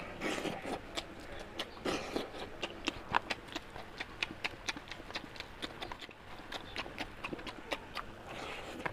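Close-up chewing and lip-smacking of curry and rice: a quick, irregular run of wet mouth clicks, several a second.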